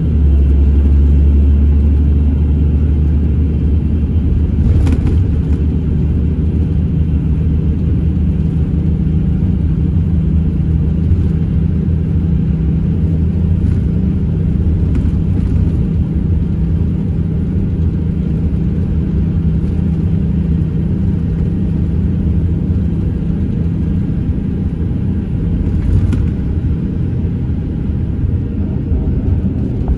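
Scania Irizar Intercentury 12.32 bus engine running at a steady cruise, heard from inside the passenger cabin as a deep, even drone with road rumble. Two light knocks, about five seconds in and near the end.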